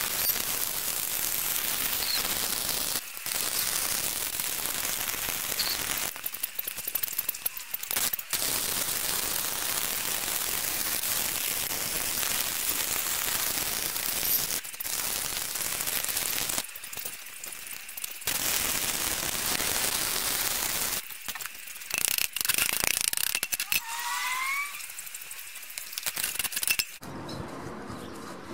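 Stick (arc) welding: the electrode's arc crackling and sizzling steadily as a bead is run round a steel ball bearing's outer race onto a steel plate, broken by several short pauses and stopping shortly before the end.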